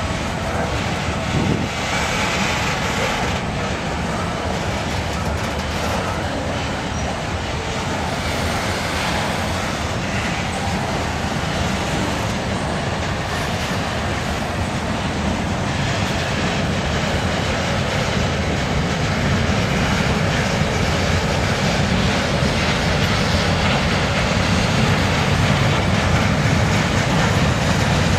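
Norfolk Southern freight cars (covered hoppers, tank cars and autoracks) rolling steadily past, their wheels running over the rails in a continuous rumble. The sound grows a little louder over the last several seconds.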